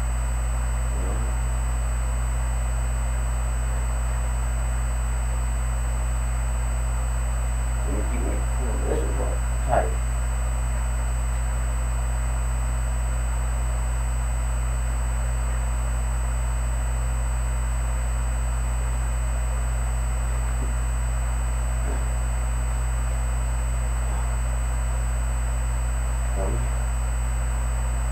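Steady low electrical hum and hiss from the recording, under a few faint, short vocal sounds from a man doing sit-ups. The clearest of these comes about ten seconds in.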